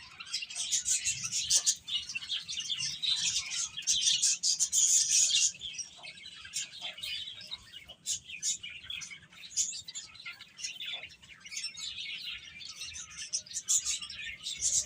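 A group of baby chicks cheeping, many high-pitched peeps overlapping without a break, busiest and loudest about four to five seconds in.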